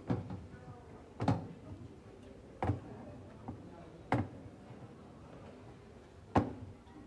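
Five short knocks at uneven intervals over a faint steady background hum; the loudest comes near the end.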